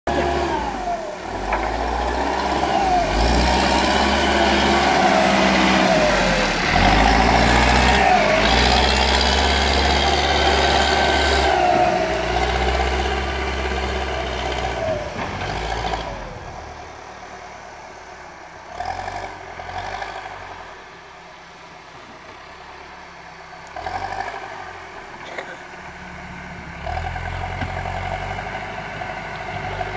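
Diesel engine of a JCB backhoe loader working, its pitch rising and falling as it revs, loud for the first half and then dropping to a quieter, lower run with a few brief swells.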